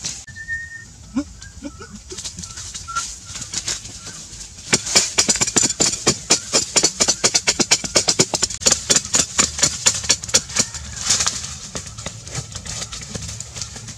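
A hoe hacking into dry, crumbly soil: a quick run of sharp strikes, about five a second, starting a few seconds in and stopping a few seconds before the end. Faint bird calls come before it.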